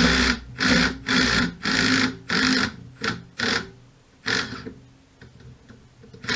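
Hand ratchet with a 13 mm socket clicking in quick repeated strokes, about one every half second, as it backs out a bolt on a Briggs & Stratton generator engine. The bolt turns freely, and the strokes stop about four and a half seconds in.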